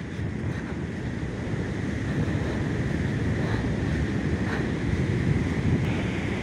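Wind buffeting the microphone over the steady rush of ocean surf breaking on the beach, a dense, gusting low rumble.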